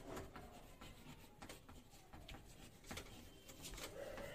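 Chalk writing on a chalkboard: faint, scattered scratches and taps as letters are written.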